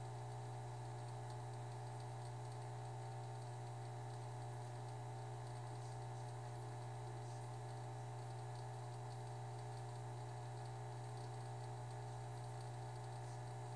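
Steady low electrical hum from aquarium equipment, unchanging throughout, with a few faint light ticks over it.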